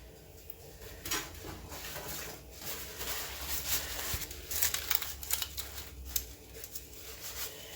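Kitchen handling noises: a run of small clicks, scrapes and rustles as utensils and a baking tray are handled.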